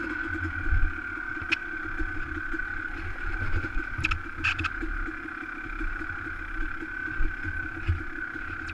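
Dirt bike engine running at low, steady revs, heard from the rider's helmet, with an uneven low rumble and a few sharp knocks and clatters as the bike picks its way over loose rock, most of them about four seconds in.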